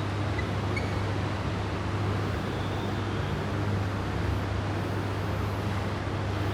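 Steady background hum with an even hiss, unchanging throughout, with no clear events.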